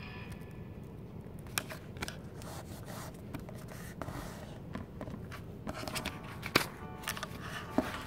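Sheet of origami paper being handled and folded on a wooden table: scattered rustles with short sharp paper clicks and taps as it is creased and pressed flat. The loudest click comes about a second and a half before the end.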